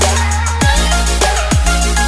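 Electronic background music with a heavy, steady bass line, punchy kick drums every half second or so, and a synth melody.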